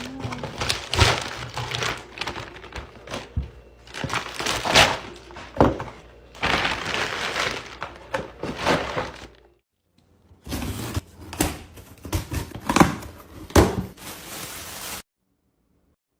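Restocking sounds: containers and packaged food being handled and set down, a quick run of knocks and clacks with rustling and hissing stretches. It stops briefly partway through, resumes, and cuts off abruptly near the end.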